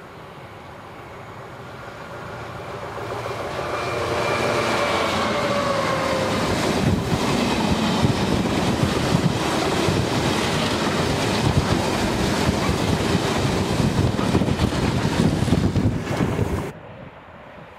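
Class 66 diesel freight locomotive approaching and passing close by, its engine note falling in pitch as it goes past. A long rake of hopper wagons follows, rumbling steadily with wheels clattering over the rail joints, until the sound cuts off abruptly near the end.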